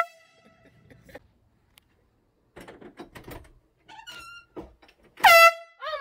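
Air horn sounding a short, loud, steady blast about five seconds in. The fading end of an earlier blast trails off at the start.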